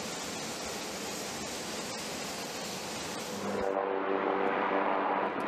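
Aircraft engine noise from a military flight line: a steady rushing hiss, then about three and a half seconds in a louder rushing with a steady low droning hum.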